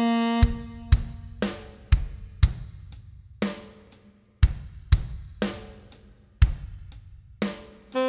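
Drum kit in a backing track playing a slow steady beat, kick and snare hits about twice a second with cymbals ringing out, while the saxophone rests. A held tenor saxophone note ends about half a second in, and the saxophone comes back in at the very end.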